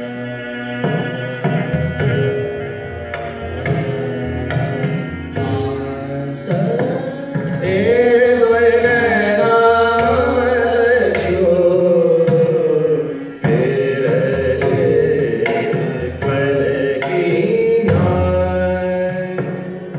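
Live Gurbani kirtan in raag: a sung melody with string accompaniment and jori drum strokes keeping a steady rhythm, swelling loudest about eight seconds in.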